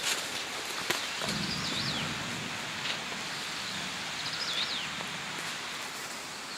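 Steady outdoor hiss of falling rain or melting hail, with a small bird giving a short warbling call twice, about three seconds apart.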